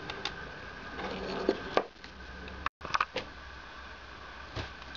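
A handful of sharp clicks and knocks over a steady background hum with a faint high tone, broken by a split-second dropout about halfway through.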